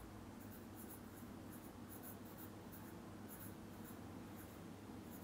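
Pencil scratching on sketchbook paper in a run of short, quick strokes, faint, over a low steady hum.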